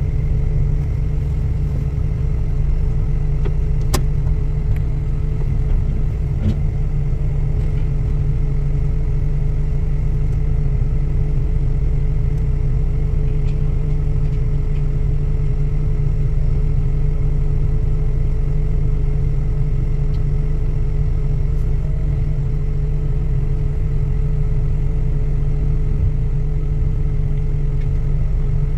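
Diesel engine of a heavy machine such as a boom truck or excavator, running steadily at a constant low speed with a steady tone over it. A sharp click about four seconds in.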